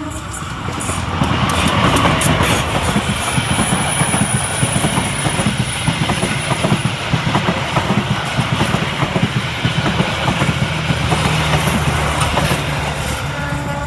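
Passenger train crossing a railway bridge: a steady, loud rumble of wheels with dense rapid clattering over the rails and a low hum underneath.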